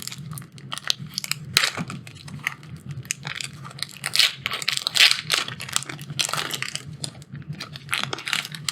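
A Theros Beyond Death draft booster's foil wrapper being torn open and crinkled by hand: a dense, irregular run of crackles and crunches.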